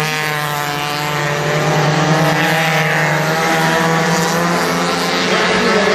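Several mini stock race cars' engines running at racing speed around a short oval, heard from the grandstand as an overlapping drone of engines whose pitches bend slightly as the cars pass.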